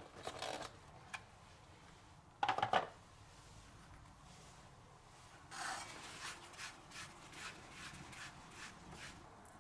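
Hands handling a cardboard gift box and a vacuum-sealed plastic pack of dried mullet roe: a short rustle, a tick, then a louder rustle about two and a half seconds in, followed near the end by a run of soft rubbing scrapes.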